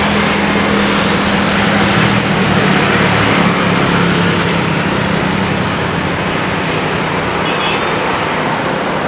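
Jet airliner engines passing close by: a loud, steady rush of jet noise with a low drone that sinks slightly in pitch, swelling to its loudest a few seconds in.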